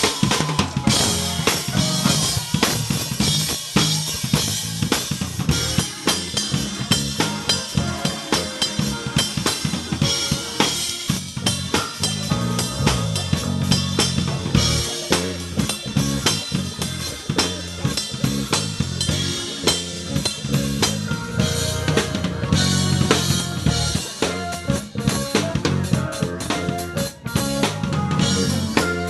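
Drum kit played live in a busy gospel groove: dense hits on bass drum, snare and rims under constant cymbal wash, with the band's music behind.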